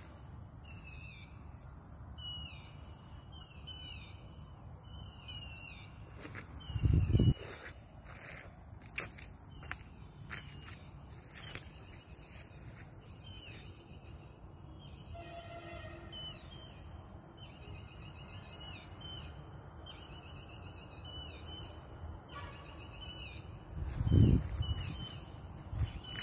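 Night insects, crickets among them: a steady high-pitched trill with short chirping calls repeated over it. Two low thumps break in, about seven seconds in and again near the end.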